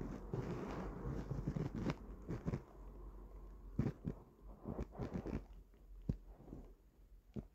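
Soft rustling close to the microphone, the sound of clothing moving with the body, with scattered small clicks. The rustling fades after about two seconds, and a few light clicks continue to the end.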